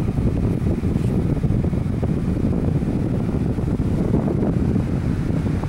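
1997 Duracraft table fan running, its airflow blowing on the microphone as a steady low whoosh.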